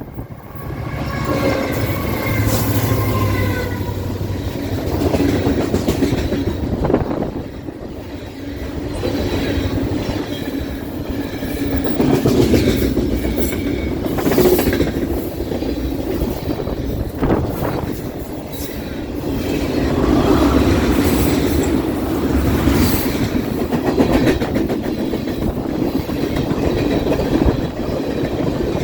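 Freight train led by an EMD SD70I diesel locomotive passing: its horn sounds for a few seconds near the start, then the train rolls by with a steady rumble and wheels clicking over rail joints.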